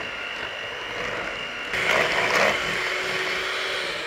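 Electric hand mixer running, its twin beaters whisking thick cake batter in a stainless steel bowl: a steady motor whine that grows louder and rougher for about a second midway, its pitch shifting, then runs on steadily.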